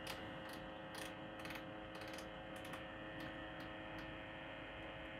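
Creality 3D printer's fans humming steadily while its control knob is turned, giving a scatter of light clicks about every half second as the bed temperature is dialled in.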